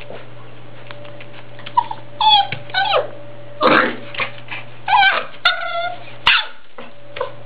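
Puppy whining and yipping, about half a dozen short, high-pitched, wavering calls in quick succession.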